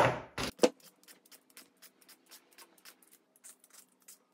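A couple of sharp knocks as things are set down on a counter, then a hand vegetable peeler scraping along a cucumber in quick short strokes, about four a second, drawing off thin ribbons.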